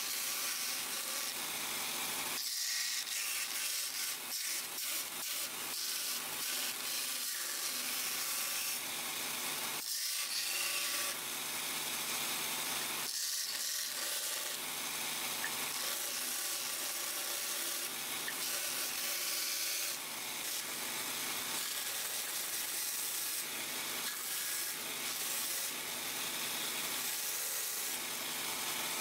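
Bench belt sander running steadily, its abrasive belt grinding a knife handle's wooden scales and steel tang in a continuous sanding noise that eases off briefly a few times as the piece is lifted off the belt.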